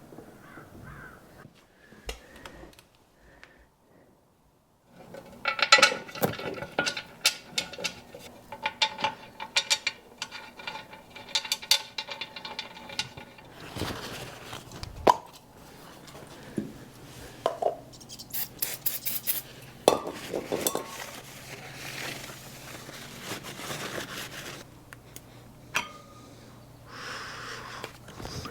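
Metal tools and parts clinking and clattering in a run of sharp, ringing clicks, busiest after the first few seconds.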